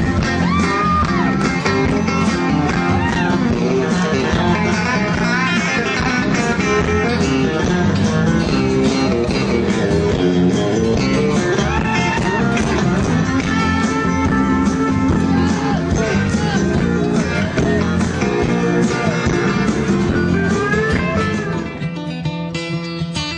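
Band playing blues-rock, led by guitar with bent, gliding notes over bass and drums. Near the end the music drops in level and changes.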